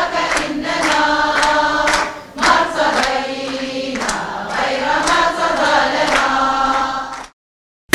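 A hall full of people singing together in unison in long phrases, with some hand clapping; the sound cuts off suddenly near the end.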